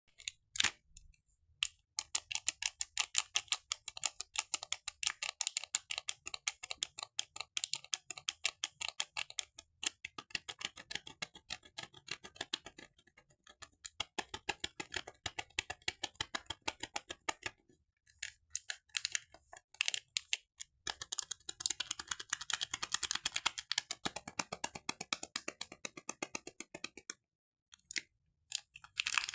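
Soap packaging being handled and unwrapped: dense runs of rapid small clicks and crinkles, broken by a few short pauses.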